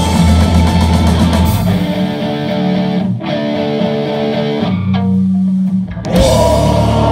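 Live rock band with electric guitars and drum kit playing loud. About two seconds in, the drums and low end drop out, leaving electric guitar notes ringing on their own. The whole band comes back in about six seconds in.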